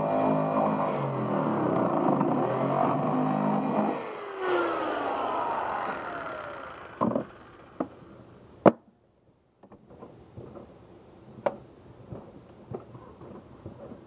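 Skil electric jigsaw running as it cuts through the plastic lid of a cooler, then released and winding down with a falling pitch. This is followed by a few sharp plastic knocks and small clicks as a PVC pipe elbow is handled and pushed into the cut hole, the loudest knock a little after the middle.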